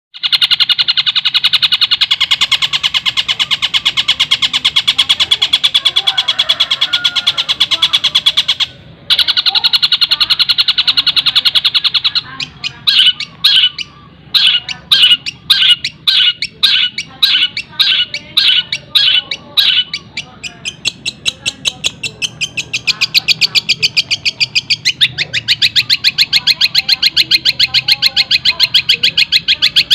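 A long-tailed shrike (cendet) singing a fast, tightly packed trill of high notes in imitation of a tengkek buto kingfisher. The trill breaks off briefly about nine seconds in. From about twelve seconds it turns into separate, evenly spaced notes at about two a second, and the fast trill returns a few seconds before the end.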